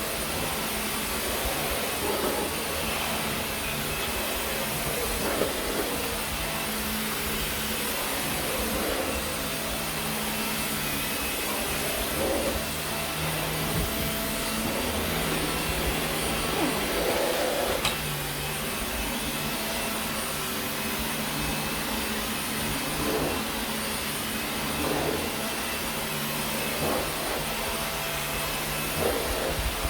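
Dyson vacuum cleaner running steadily as it is pushed over carpet, with a brief swell in the sound every few seconds as the head moves.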